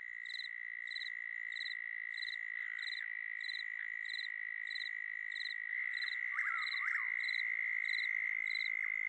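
Animal chorus: a steady high-pitched trill with regular pulsing calls about twice a second, and a few quick sweeping chirps about two-thirds of the way through.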